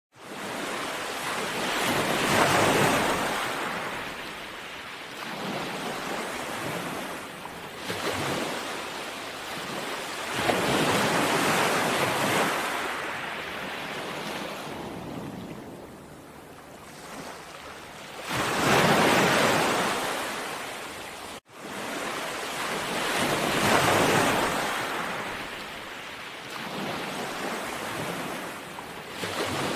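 Sea waves breaking and washing ashore, the surf swelling and ebbing every several seconds, with the loudest surges about two seconds in, around ten to twelve seconds, and near nineteen seconds. The sound cuts out for an instant about two-thirds of the way through.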